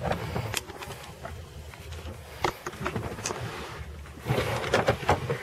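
Scattered light clicks and knocks of hands and tools working on loose car interior trim parts, with a cluster of handling knocks near the end, over a low steady hum.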